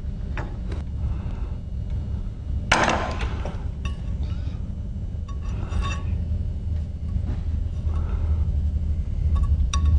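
Small metal clinks and taps of a steel tool against a side-by-side shotgun's barrels and extractor as the extractor's stop pin is worked out. The loudest clink comes about three seconds in, and a few leave a short ringing note. A low steady hum runs underneath.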